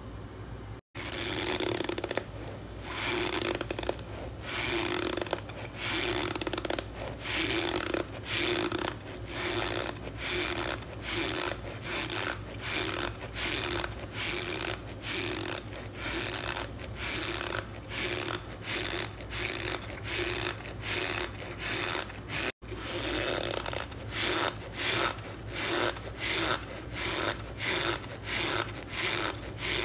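A metal spoon scooping and pressing loose cornstarch in a plastic tub, making scraping, crunching strokes about twice a second.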